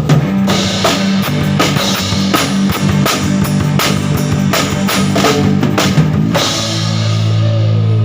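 Rock band playing: drum kit hits over bass and guitar notes. The drumming stops about six seconds in and a low chord is left ringing.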